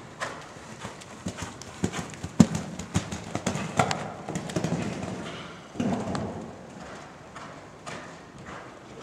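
A horse's hooves cantering on an arena's sand footing, a steady run of muffled hoofbeats. The loudest strikes come about halfway, as the horse takes off over a fence.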